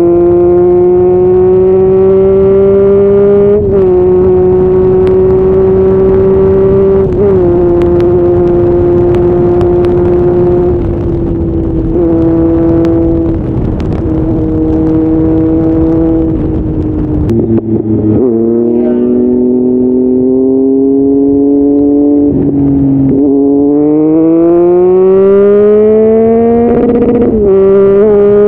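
Motorcycle engine pulling hard at high revs while riding at speed, its pitch mostly steady with brief breaks at gear changes. About two-thirds through, the revs drop, then climb steadily as the bike accelerates, with another shift near the end.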